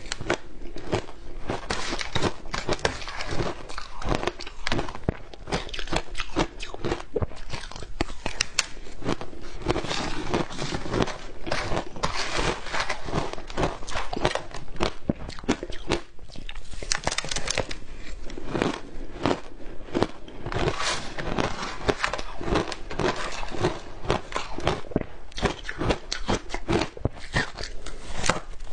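Matcha-dusted ice being bitten and chewed, a dense, continuous run of crisp crunches and crackles with no break.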